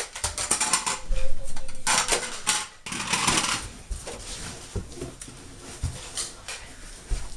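Nerf blasters being worked and fired in a fight: quick plastic clicks and clatter, with two louder rushes of noise about two and three seconds in.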